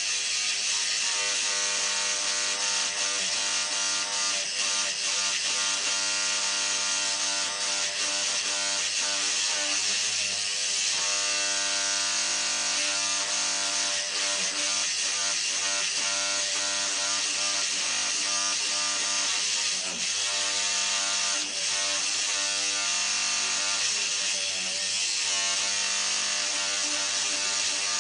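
A cat gnawing and rubbing its teeth along the edge of a cabinet top, a continuous rasping that keeps up throughout.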